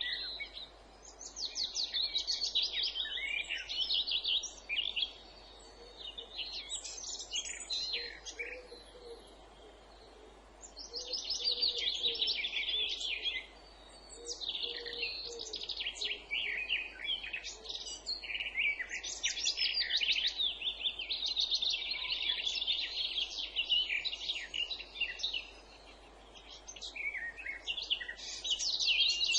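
Songbirds singing in bouts of rapid, fast-repeated notes and trills lasting a few seconds each, with short lulls between them; faint low cooing notes sound in the background around the middle.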